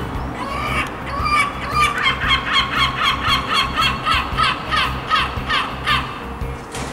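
Adult herring gull giving its long call: a few drawn-out notes, then a rapid, even series of short calls, about four a second, for several seconds.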